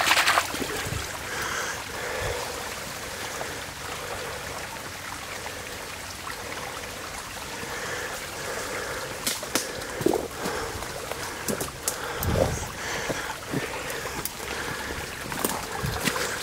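Muddy runoff water running and trickling over small drops in a freshly dug earthen spillway channel, a steady stream sound. A hand splashes in the water at the very start, and a few short sharp clicks and knocks come later.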